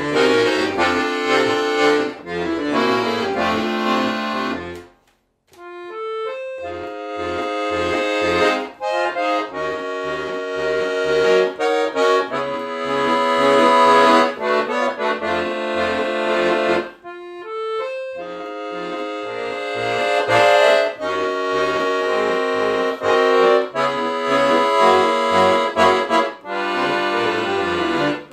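Solo piano accordion playing: chords and melody on the keyboard over short, separate bass notes from the bass buttons. About five seconds in the music stops completely for roughly a second, then resumes with a single held note.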